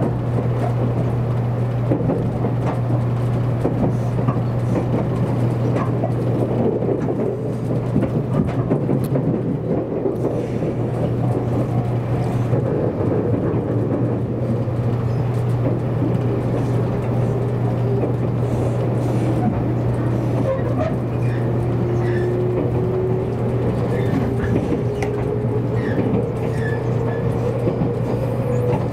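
Cabin noise of a JR Kyushu 783 series limited express electric train running on the rails: a steady low hum under a constant rumble of wheels on track. Over the last several seconds a thin whine rises slowly in pitch.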